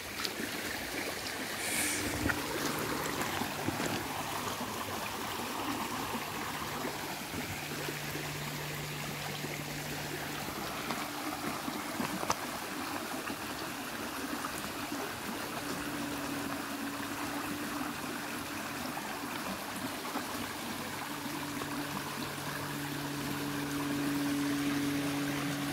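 Shallow stream running and trickling over stones, a steady rush of water. A faint low hum comes and goes under it.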